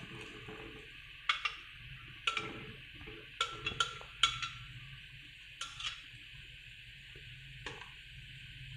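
Metal spoon scraping and knocking against a blender jar, a series of sharp clinks that ring briefly, as peach puree is scraped out into a pan. Underneath, a pan of sugar syrup simmers with a steady faint bubbling hiss.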